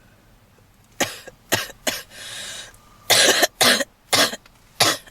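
A woman's smoker's cough in a fit: three short coughs about a second in, a drawn-in breath, then a run of four harder, hacking coughs.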